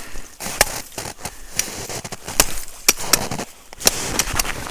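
Irregular sharp clicks and crackles of frozen snow and ice being crunched and handled in deep cold.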